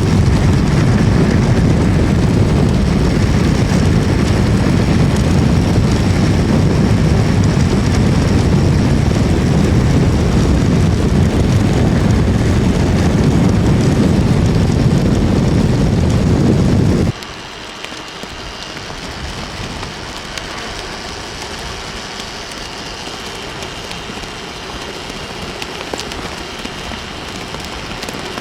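Heavy wind buffeting on the microphone of a moving recumbent trike, a loud, deep, steady rumble. About 17 seconds in it cuts off suddenly to a quieter, steady rushing hiss.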